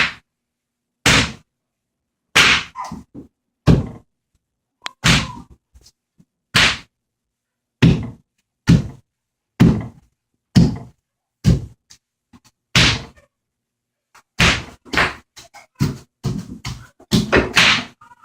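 Bubble wrap being popped: about twenty sharp pops, each with a dull thud under it, spaced roughly a second apart and coming faster and in quick pairs near the end.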